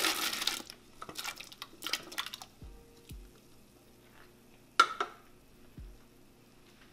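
Canned hominy sliding out of a metal can into a pot of hot water, with a brief splash and a few light knocks and scrapes of the can at the start. Near the middle, one sharp metallic clank with a short ring as the can is set down. Quiet background music with a soft beat underneath.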